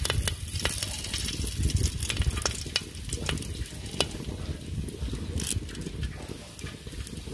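Curry leaves crackling and spitting in hot coconut oil in an aluminium pot, scattered sharp pops over a steady low rumble, as the leaves are torn in by hand for tempering.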